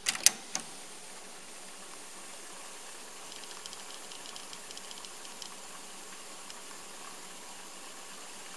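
Sansui SC-1110 cassette deck: three sharp clicks of its piano-key transport buttons, then a steady hiss from the running deck with faint quick ticking partway through.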